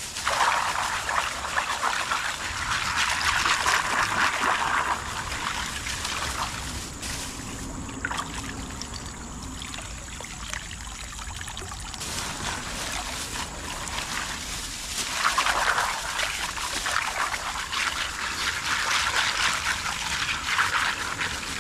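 Water pouring and trickling out of a plastic bag as it is dipped into a shallow river and lifted out to drain. It runs heaviest for the first five seconds or so, eases off in the middle, and pours strongly again about 15 seconds in.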